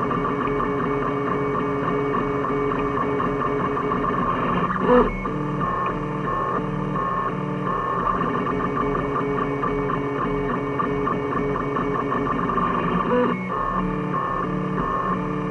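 3D printer's stepper motors whining as it prints, a shifting set of steady tones that change pitch with each move, with two brief louder moments about five and thirteen seconds in.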